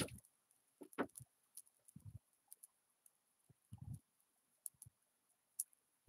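Near silence, broken by scattered faint clicks and a few soft low thumps, over a faint steady high hiss.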